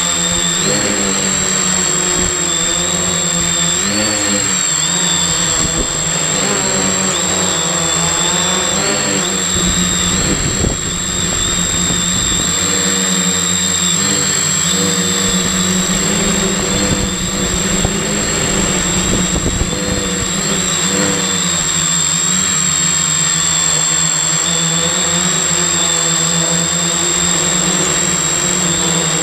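Multirotor drone's brushless motors and propellers buzzing close to an onboard camera, the pitch wavering up and down as the throttle changes while the craft climbs. A steady thin high whine sits above the motor sound.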